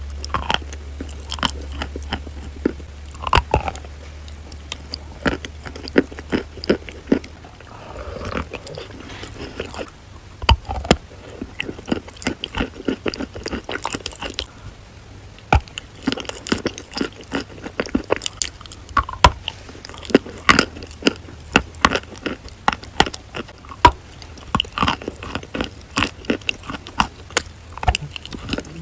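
A person biting and chewing chalk coated in paste close to the microphone: many sharp crunches and crackles in uneven clusters, with softer chewing between them.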